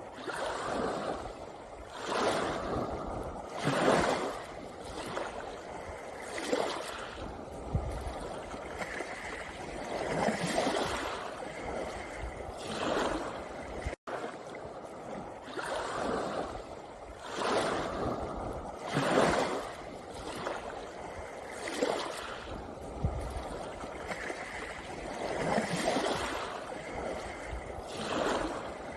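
Sea waves washing in over a pebble beach, a surge every two to three seconds, with a split-second dropout about halfway through.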